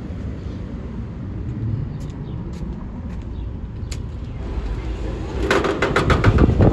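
Steady low outdoor rumble with a few light clicks, then, near the end, a loud clatter and thudding as a glass entrance door is pulled open and walked through.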